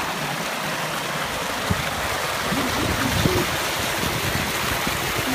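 Fast water rushing down a narrow concrete channel, a steady rush with a couple of brief low thumps near the middle.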